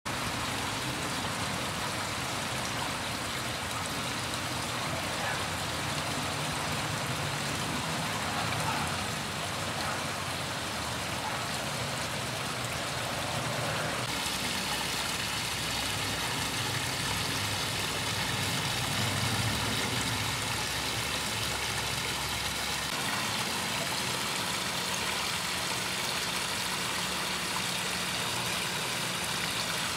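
Pond waterfall splashing steadily as water spills over stone ledges into a koi pond, with a low rumble underneath. About halfway through, the splash turns abruptly brighter and hissier.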